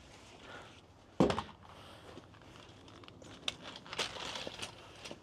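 A single sharp knock about a second in, then scattered light clicks and rustling: objects being handled.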